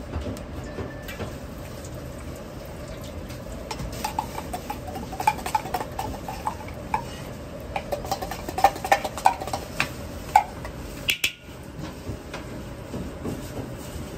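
A metal spoon clinking repeatedly against a tin can and the wok as sacha sauce paste is scooped into hot oil, over the steady rush of the wok's gas burner. The clinks come in a run of several seconds through the middle.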